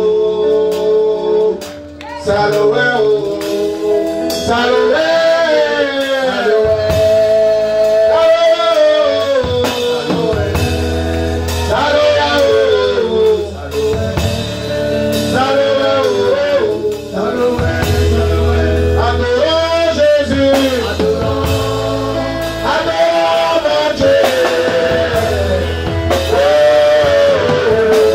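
A man singing a praise song into a handheld microphone over amplified band music with guitar and a steady bass line.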